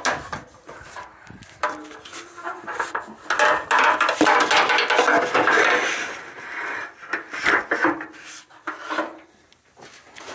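A ladder being moved and repositioned, with a run of knocks, clatters and scraping against wood, busiest in the middle and easing off near the end.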